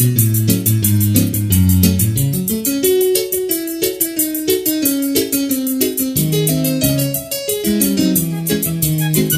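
Instrumental music: keyboard (electric piano) chords over a moving bass line, with a fast, even percussion tick.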